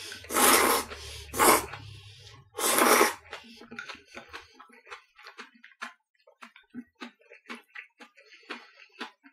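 Udon noodles slurped loudly three times in the first three seconds, followed by quieter chewing, a run of small irregular clicks.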